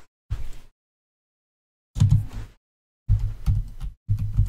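Computer keyboard typing in short spurts of clicking keystrokes, with silent pauses between them.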